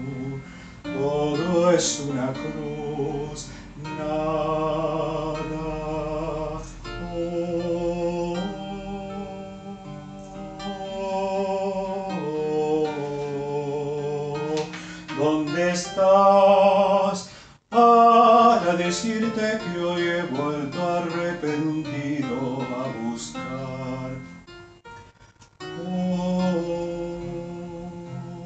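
Music: a slow tango melody sung with vibrato, the contralto line of a choral arrangement, over an instrumental accompaniment.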